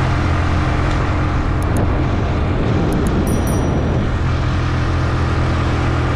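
Motorcycle engine running steadily while riding along a road, with a constant low hum and road noise.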